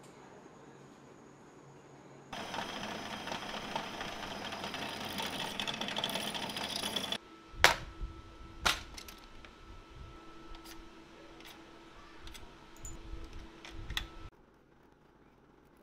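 A blue metal tap-and-die set case being handled and opened: two sharp metallic clicks about a second apart as its catches and lid snap, then lighter clicks and rattles of the metal case and the tools inside. Before this, about five seconds of dense, rapid mechanical clatter.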